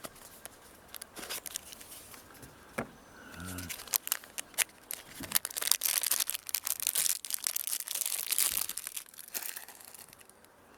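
Knife packaging being opened and unwrapped by hand: wrapping crinkling and tearing among light handling clicks, busiest through the middle.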